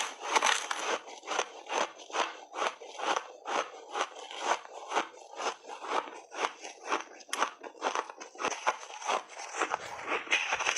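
A person chewing refrozen berries and ice in a steady run of crunches, about two to three a second.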